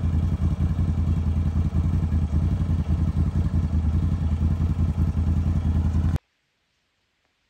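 Can-Am Renegade ATV's V-twin engine idling steadily with a fast, even low throb. It cuts off suddenly about six seconds in.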